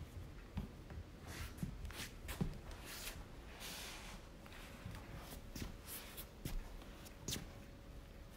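A small kitten's paws ticking and scuffing on a wooden floor as it walks: a string of faint, irregular clicks.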